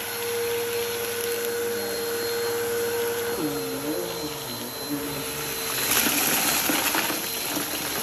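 Bissell upright vacuum cleaner running on carpet, its motor whine steady at first, then wavering in pitch as the cleaner is pushed back and forth. Around six to seven seconds in it gets louder, with the crackle of crunchy debris rattling up into the cleaner.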